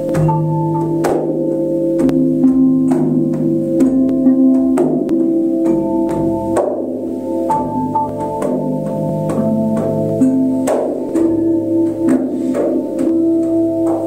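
Hanging flat healing bells struck with a mallet in an irregular run of strokes, each strike leaving several pitches ringing on, so the notes overlap into a sustained, shifting chord.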